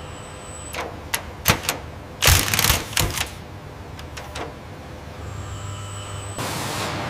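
Robot arm's tool clicking and clacking at a truck's door-hinge bracket: several sharp single clicks, then a quick rattling run of clicks about a third of the way in, then a few more. A steady hiss starts near the end.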